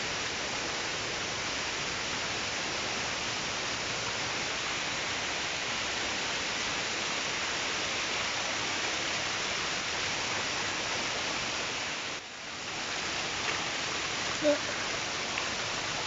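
Steady rush of falling water from a waterfall, with a brief dip about twelve seconds in and a single small knock near the end.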